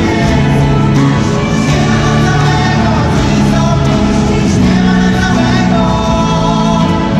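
A group of singers performing a Christmas carol together, backed by a live band with electric guitar and bass guitar; loud and continuous, with held bass notes under the voices.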